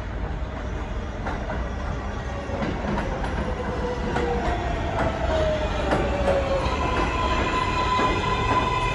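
R188 subway train pulling into an elevated station and slowing, its rumble growing louder, with clicks of the wheels over rail joints. A whine falls in pitch midway, then a steady higher whine with overtones sets in about seven seconds in as it brakes.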